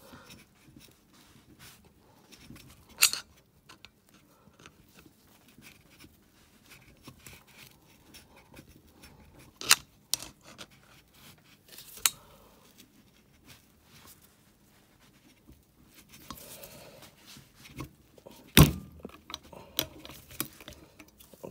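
A steel screwdriver levering and scraping against the valve spring retainer of a JS171FFM single-cylinder head to free the valve keepers: light metal scraping with a few sharp metallic clicks, the loudest near the end.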